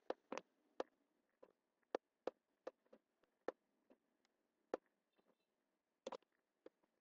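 Computer mouse button clicking: single sharp clicks at an irregular pace, roughly two a second, with a quick double click about six seconds in.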